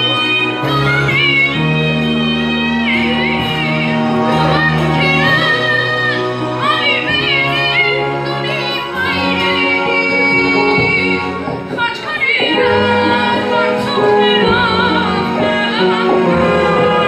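A singer's voice with wavering vibrato on held notes, over musical accompaniment with long sustained bass notes that change every few seconds.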